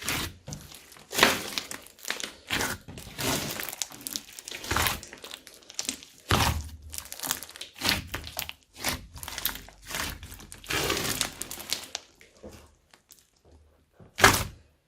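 Slime being mixed and squeezed, a run of irregular squishes that thins out about twelve seconds in, with one last loud squish near the end.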